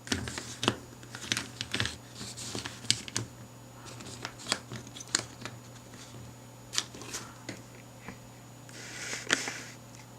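Small plastic toys and wrapping being handled by hand: scattered light clicks and taps with short crinkling rustles, a few to a second, over a faint steady hum.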